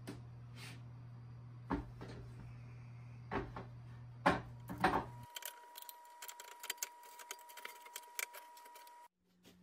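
Walnut boards being set down and shuffled on metal bar clamps: a few sharp knocks of wood against wood and metal, then a run of small clicks and taps. A low steady hum underneath stops about halfway.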